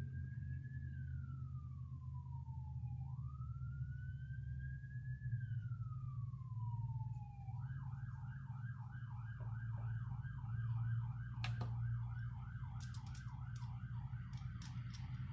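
Emergency vehicle siren: two slow rising-and-falling wails, then a fast yelp of about three cycles a second from about halfway through, over a steady low hum.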